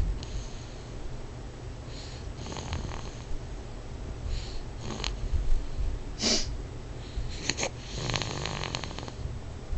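Loud snoring: a low rumble throughout, with a string of separate snoring breaths over it about every second or two, and a longer rattling one near the end.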